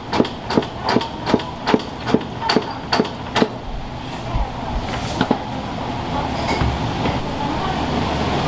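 Knife chopping on a wooden cutting board in a steady rhythm, about two and a half strokes a second, stopping about three and a half seconds in. After that only a steady kitchen noise is left, slowly getting louder.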